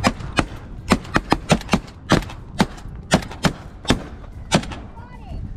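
A rapid, irregular volley of about a dozen 12-gauge shotgun blasts from several hunters, among them a semi-automatic AR-style shotgun, over about four and a half seconds. Geese honk faintly near the end.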